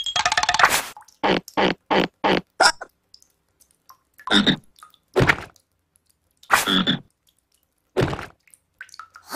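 Cartoon frog croaking: a quick rattling croak, then a run of five short croaks, then four longer croaks a second or so apart.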